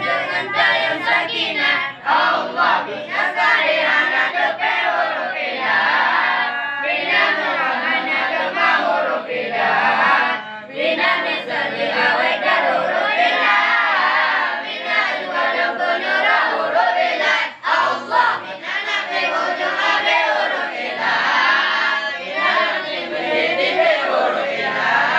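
A group of young male students chanting nadham, versified Arabic grammar lessons (nahwu and sharaf) in Acehnese, together in unison without instruments.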